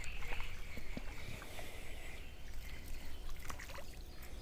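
Light splashing and sloshing of water as a small hooked fish is drawn in through the shallows on a float rod, with a steady chirring of insects beneath.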